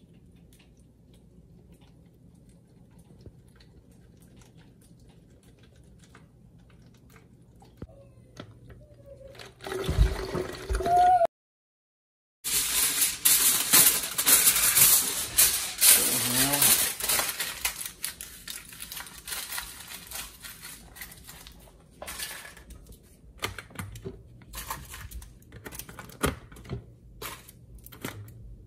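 Liquid poured into a plastic 2-liter soda bottle, its pitch rising as it fills, cut off abruptly. Then aluminum foil crinkling loudly as it is torn and crumpled into small balls, thinning out into scattered lighter crinkles.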